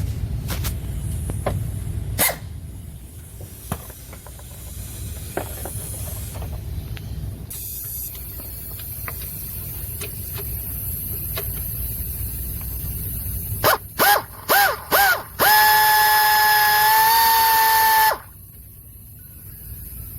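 A horn sounding four short blasts, then one long steady blast of about two and a half seconds, after a low rumble with scattered clicks.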